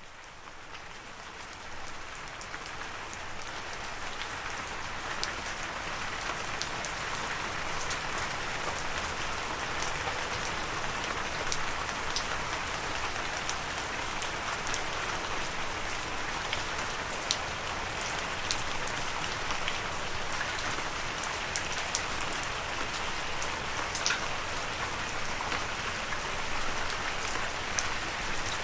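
Steady rain falling, an even hiss with many individual drops ticking sharply on a surface. It fades in over the first few seconds, then holds steady.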